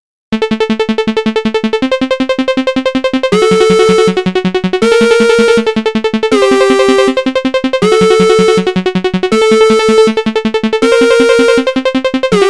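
Electronic synthesizer music: a rapidly pulsing, pitched synth tone repeating about ten times a second. The notes shift to a new pitch every second and a half or so. It starts just after a brief silence.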